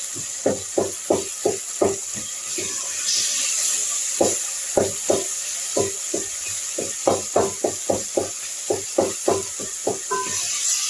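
A spoon knocking and scraping against a small cooking pot in quick, uneven strokes as the frying tomato mixture is stirred, over a steady sizzle.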